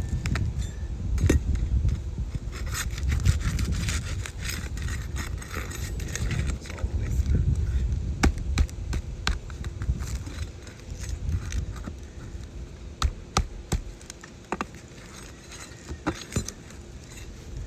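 Scraping and rubbing under asphalt roof shingles, with scattered sharp clicks and snaps, as the fasteners holding a wind-damaged shingle are worked loose to free it. A low rumble runs under the first half, and the clicks come more sparsely toward the end.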